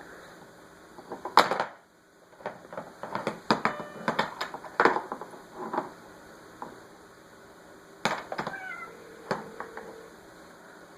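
Toy hammer knocking in a run of irregular strikes, the loudest about a second and a half in, with a couple of short squeaks near the end.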